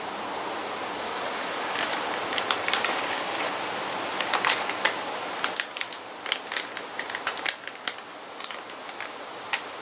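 Plastic snack-mix bag crinkling as it is worked and torn open: a string of sharp, irregular crackles over a steady background hiss.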